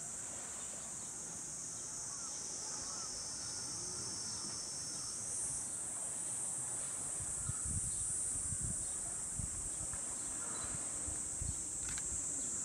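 Cicadas droning steadily in a high-pitched band, with a few soft low thumps in the second half.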